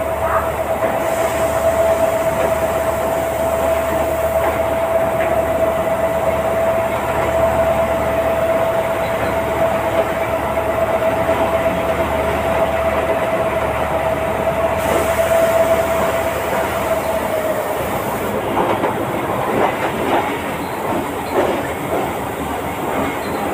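Passenger train rolling along the track, heard from the carriage door, with one steady high tone that holds for most of the time and stops about two thirds of the way through. After it stops, irregular clicks and knocks of the wheels over the rails come through.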